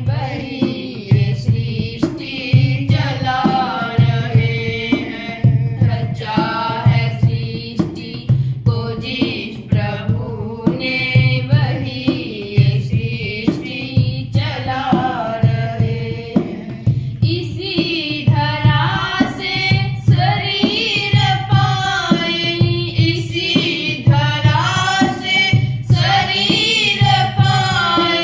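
A woman singing a Hindi devotional bhajan in long melodic phrases over a steady, evenly repeating drum beat.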